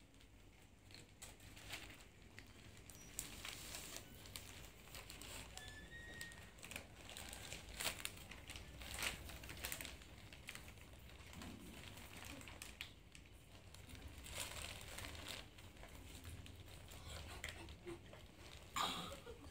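Newspaper and plastic crinkling and rustling under handling, with scattered light clicks and taps at an uneven pace.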